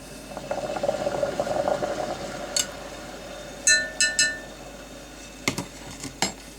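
Caustic soda being stirred into hot water in a Pyrex glass jug, with a scraping rattle for about two seconds, then three ringing clinks against the glass and two sharper knocks near the end.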